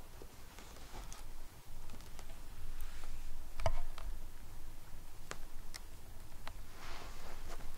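Scattered light clicks and soft rustles of a Siamese cat pawing and rolling with a fabric toy on a woven rug, its claws catching the weave; one louder click comes about halfway through.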